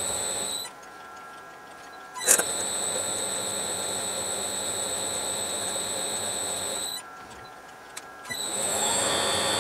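Smart and Brown 1024 lathe running with a steady high-pitched whine, raised in pitch because the footage is sped up six times. The whine drops away twice for about a second and a half: the first time it comes back with a sharp loud click about two seconds in, the second time a smaller click comes just before it resumes near the end.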